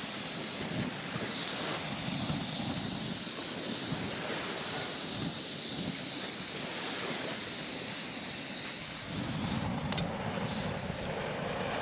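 Portable gas burner running flat out with a steady hiss, its flame held on rain-damp firewood to get a fire started.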